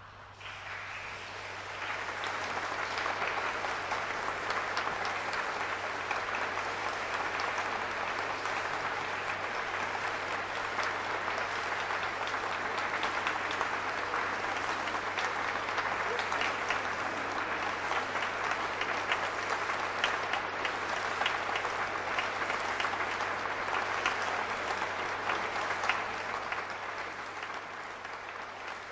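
Concert audience applauding at the end of the performance: the clapping starts up out of silence, swells within about two seconds, holds steady and eases off a little near the end.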